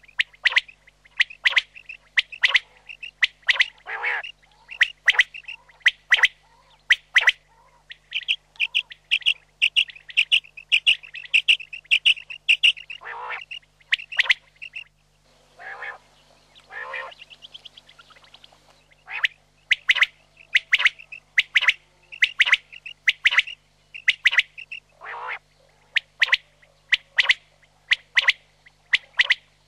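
Common quail calling: a long series of short, sharp notes repeated again and again, with a quicker, denser run of notes about a third of the way in and a few lower calls in the middle.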